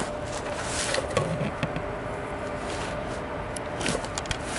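Butane torch lighter burning with a steady hiss and buzzing tone while toasting the foot of a cigar, cutting off near the end; a few light handling clicks.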